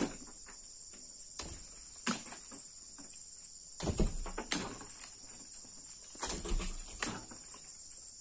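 Insects chirring steadily at a high pitch, with irregular knocks and thumps coming through now and then. The loudest cluster of thumps comes about four seconds in, and another follows at around six to seven seconds.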